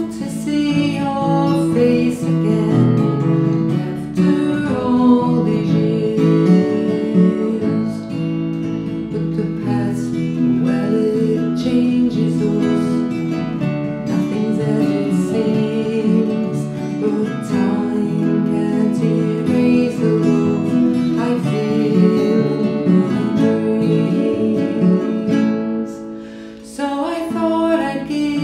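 Two acoustic guitars playing a slow folk song, strummed and picked together, with a brief dip in level near the end.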